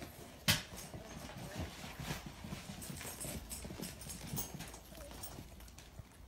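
Poodle puppies moving about in a wire crate: scattered light clicks, taps and scuffles, with one sharper knock about half a second in.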